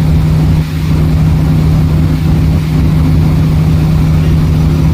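Loud, steady low machine hum with a rough rumble beneath it, holding the same pitch throughout with no rise or fall.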